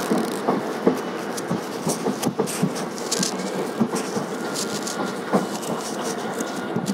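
Running noise of a passenger train coach at speed, heard from an open door: a steady rumble of wheels on the rails with irregular clicks and knocks.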